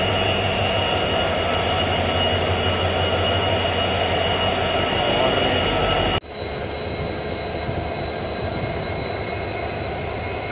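Steady loud drone of diesel locomotive engines running in a loco shed, with high whining tones over it. About six seconds in it cuts off abruptly and a quieter steady drone with one high whine carries on.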